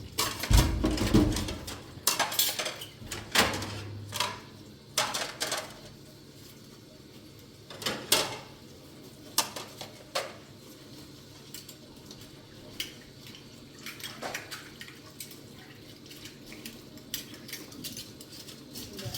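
Irregular clinks and knocks of objects being handled, many in quick succession for the first several seconds, then scattered single ones.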